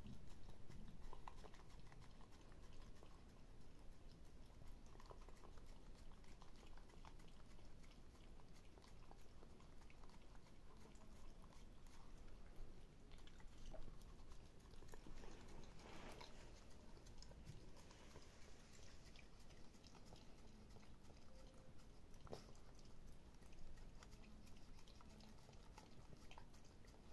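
Small dog licking yogurt from a plastic pot: faint, wet licking and mouth sounds, a little louder for a moment past the middle.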